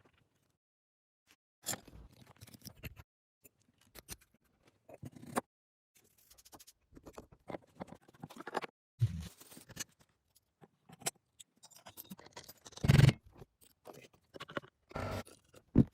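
Intermittent scraping, clicking and knocking of hand tools and metal parts being worked on during a motorcycle restoration, with a few heavier knocks, the loudest about two-thirds of the way through.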